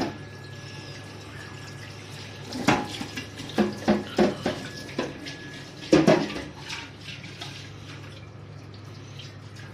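Juice from a lemon half, squeezed by hand, dripping and splashing into a steel bowl of chopped salad: a handful of short wet sounds in the middle of the stretch, over a steady low hum.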